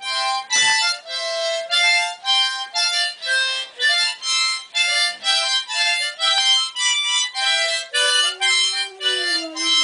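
Harmonica played in short notes and chords, about two a second. Near the end a long low note slowly falls in pitch.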